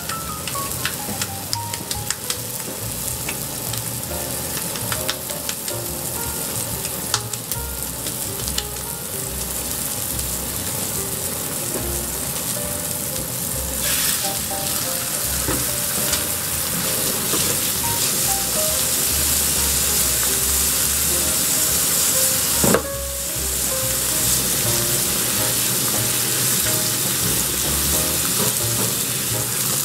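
Thin ground-beef patties sizzling in hot fat in a cast-iron skillet, a steady frying hiss that grows louder about halfway through as a second patty is pressed into the pan.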